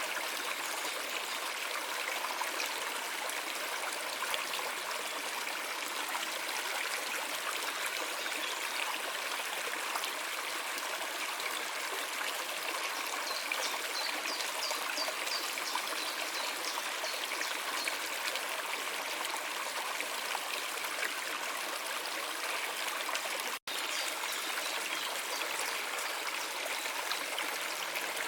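Stream trickling and babbling steadily, with a split-second gap in the sound about four-fifths of the way through.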